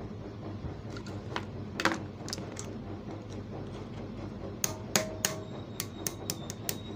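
Light metal-on-metal tapping as a tight part is gently knocked out of an overlock sewing machine's mechanism: a few scattered taps, then a quicker run of taps in the second half.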